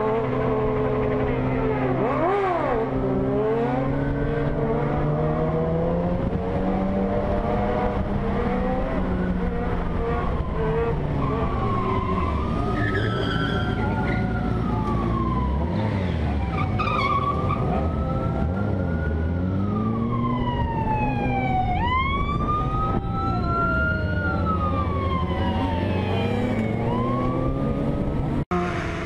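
Several sport motorcycle engines running at speed with heavy wind rush, their pitch climbing and falling as riders rev and shift. Over them a police-style siren wails up and down in slow cycles through the second half.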